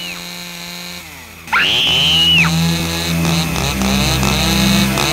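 Chainsaw engine sound, revving up sharply about a second and a half in, then running on with a steady pulsing beat.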